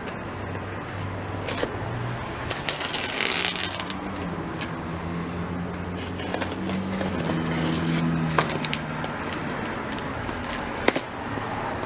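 Shipping packaging being handled and pulled open by hand: scattered crackles and clicks, with a longer burst of rustling or tearing about three seconds in, over a steady low hum.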